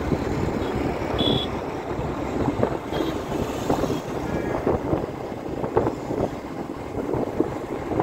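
Wind buffeting the microphone and road noise from a moving vehicle, with a brief high beep about a second in.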